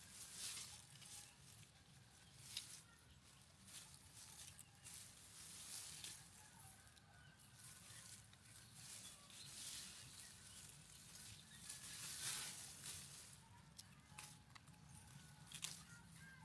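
Faint rustling and scattered light clicks, coming and going in short bursts, with a faint thin chirp now and then.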